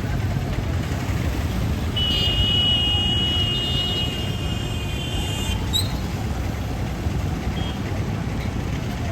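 Road traffic running steadily with a low rumble, and a high steady tone held for about three and a half seconds starting about two seconds in.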